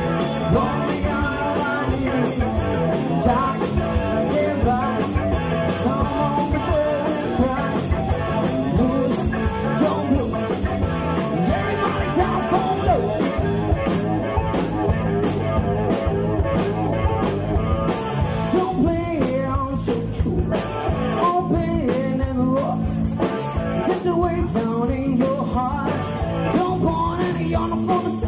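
Live rock band playing: electric guitar, bass guitar and drum kit keeping a steady beat, with a male singer on vocals.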